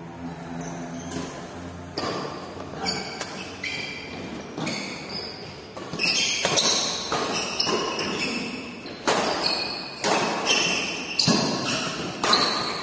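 Badminton doubles rally in an echoing hall: about a dozen sharp racquet smacks on the shuttlecock, coming faster and louder in the second half, with short high squeaks from shoes on the tiled floor between them.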